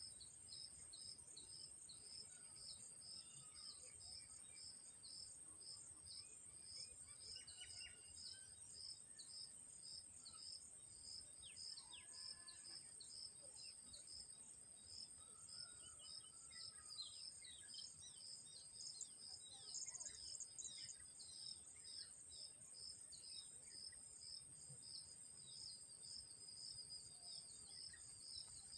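Faint natural ambience: a steady high insect trill with a regular high chirp about twice a second, and scattered short bird calls.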